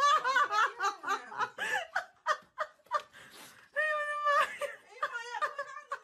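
A person laughing in high-pitched bursts, with a quieter stretch in the middle and a longer drawn-out laugh about four seconds in.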